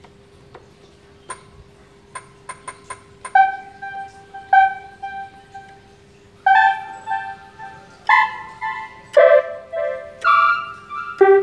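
Electronic keyboard played one note at a time, picked out slowly with gaps of a second or so. It starts after a few soft key clicks in the first three seconds, and a faint steady hum runs underneath.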